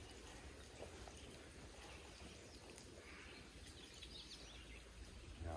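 Quiet woodland ambience: a low steady rumble with faint bird calls and one or two faint clicks.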